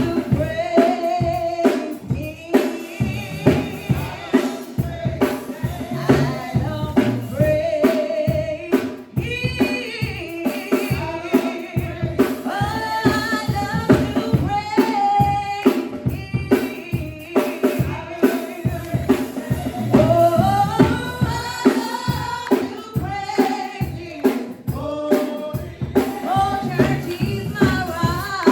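Gospel singing with a drum kit keeping a steady beat, bass drum and snare hits under the voices.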